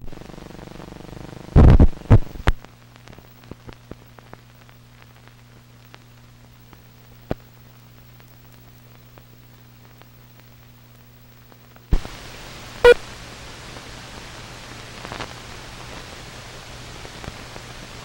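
Old film optical soundtrack running over the countdown leader: a steady low hum with scattered crackles and pops, and a few loud thumps about two seconds in. About twelve seconds in, a hiss comes up and stays, and a second later there is a short beep, the sync 'two-pop' of the countdown.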